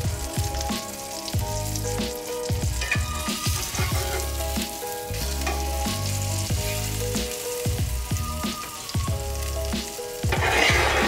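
A battered chicken cutlet sizzling in a cast-iron skillet, under background music with a steady beat. The sizzle surges louder near the end as the skillet is shifted on the burner.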